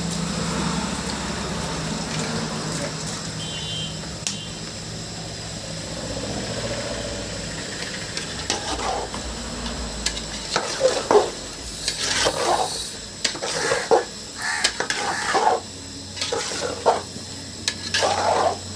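Metal spoon stirring and scraping in a cooking pot: a run of irregular scrapes and clinks that starts about halfway through and gets busier toward the end, over a steady low hum.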